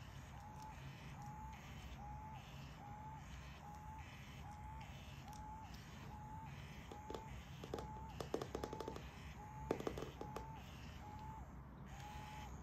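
Electric cat toy with a motorised feather arm giving short, slightly rising electronic tones, about two a second. Between about seven and ten seconds in there is a quick run of sharp clicks and knocks.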